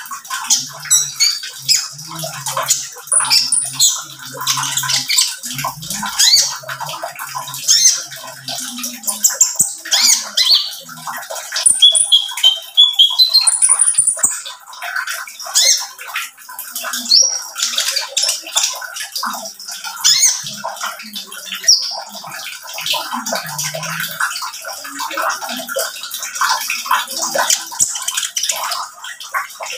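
Caged male kolibri ninja sunbird (konin) singing a rapid, continuous song of high, sharp chirps and short trills.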